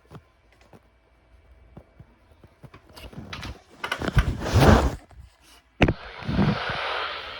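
Knocking and rustling handling noise about three to five seconds in, then a sharp click and a steady hiss like receiver static.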